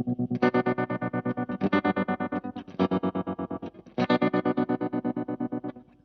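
Baritone electric guitar played through a Space Sounds Cosmic Tremolo pedal on its faster setting: chords pulse rapidly and evenly in volume, about eight or nine pulses a second. A new chord is struck about every second, and the playing stops just before the end.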